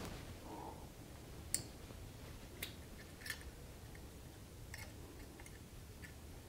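Pliers working a bumper-diffuser alligator clip, bending it back into shape: a handful of faint, sharp clicks at irregular intervals.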